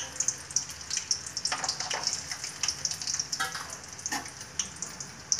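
Peanuts frying in hot oil, a steady sizzle broken by many irregular sharp crackles and spits, the first stage of a tempering.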